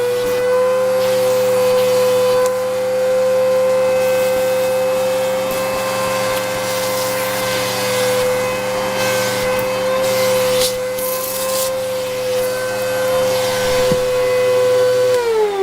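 Bissell PowerLifter Multi-Cyclone vacuum cleaner motor running with a loud, steady, high whine while the crevice tool is used, with a few brief clicks partway through. Near the end it is switched off and the whine falls in pitch as the motor winds down.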